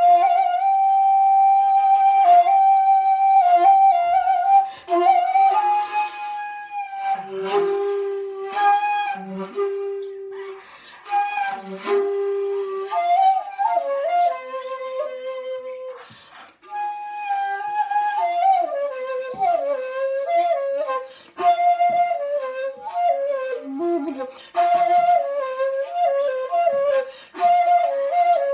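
Bamboo shakuhachi playing a classical solo honkyoku. It opens with a long held high note, moves to lower sustained notes with breathy attacks, breaks off briefly about 16 seconds in, then goes into quick wavering, trilling phrases.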